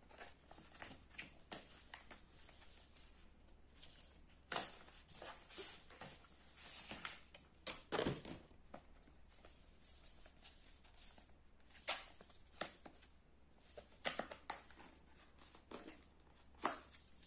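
Unboxing handling noise: the gimbal's packaging and small accessories being picked up and moved, giving scattered rustles, light taps and clicks at irregular moments.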